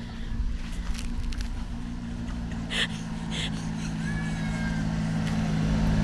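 Small engine of a Japanese kei truck running at a steady low speed, growing steadily louder as it approaches.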